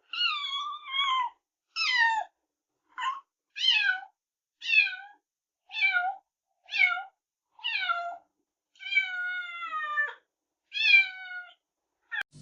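Newborn kitten mewing over and over: about a dozen high-pitched cries, each falling in pitch, with one longer drawn-out cry near the end.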